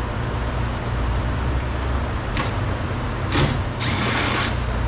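Hand tool working the 10 mm bolt inside a car door's handle recess: two sharp clicks, then a brief rattling scrape near the end, over a steady low hum.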